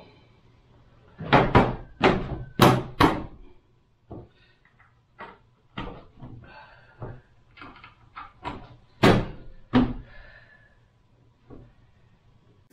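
Plastic hood of a Power Wheels ride-on car being shut and pressed down: four loud knocks about one to three seconds in, lighter clicks and taps after, and two more knocks around nine to ten seconds.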